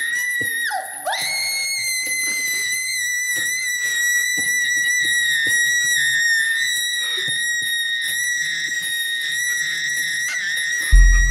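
A shrill, sustained high-pitched tone with overtones from the horror film's sound design. It dips sharply in pitch and climbs back about a second in, then holds steady. A deep low boom hits near the end.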